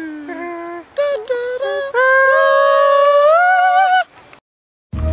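A high solo voice singing unaccompanied, holding a few short notes and then one long note that steps up in pitch near its end before cutting off about four seconds in.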